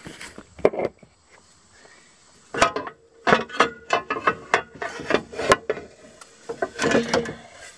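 Plastic CVT clutch cover on an Arctic Cat Wildcat 1000 X being worked loose by hand and pulled off, giving a few knocks, then after a quiet second or so a run of irregular knocks and clatters as it shifts against the engine and frame.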